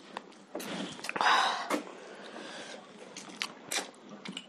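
Close-up eating sounds: short wet clicks and smacks from mouths and hands in rice and curry. A loud sniff through the nose comes a little over a second in.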